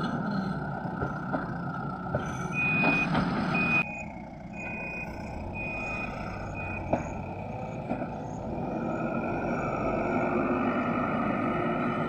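Diesel engines of a Manitou MBL 745HTS backhoe loader and a loaded tipper truck running steadily. A reversing alarm beeps about five times, roughly once a second, from a couple of seconds in until about seven seconds in.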